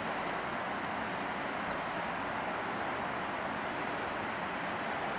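A steady, even rushing noise with no break or change, and a few faint high chirps about half a second in, near the middle and near the end.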